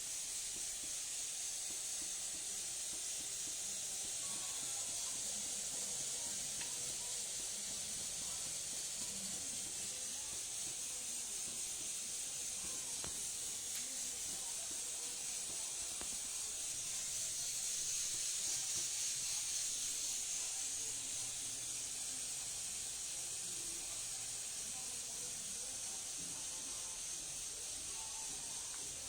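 Steady hiss of steam from an electric baby bottle warmer-sterilizer heating its water, swelling a little louder just past the middle.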